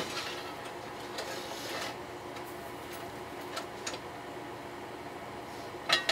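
Scattered light taps and clicks of tools and metal parts being handled on a workbench, ending in a sharp double metallic clank with a brief ring near the end, over a faint steady hum.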